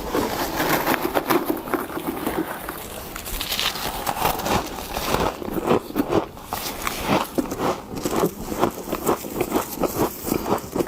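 Frost being scooped and scraped, crunching and crackling in quick, irregular strokes that come several a second from about four seconds in.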